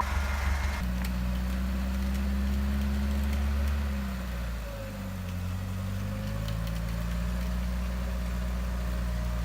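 UAZ engine idling steadily; about halfway through its speed sags briefly, then picks back up.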